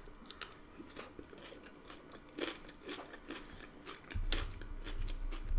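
Close-miked chewing and crunching of a mouthful of burrito bowl: crisp lettuce, cucumber and battered chicken, with short crackly mouth sounds. About four seconds in, a low rumble comes in as a wooden spoon scoops through the glass dish.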